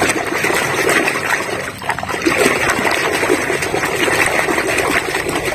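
Water splashing and sloshing as a toy vehicle is washed by hand in water, with a brief lull just under two seconds in.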